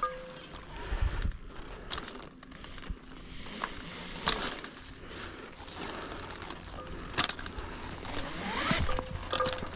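Climbing rope running through a rope climbing system and metal hardware clinking, with scattered knocks and scrapes against the trunk, during a rappel. A brief rising squeak comes near the end.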